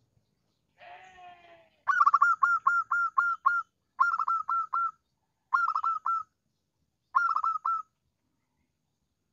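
Zebra dove (perkutut) singing its song of rapid, high staccato coos in four quick phrases of about seven, five, four and four notes: a lure song used to call rival doves. A faint lower sound comes just before the first phrase.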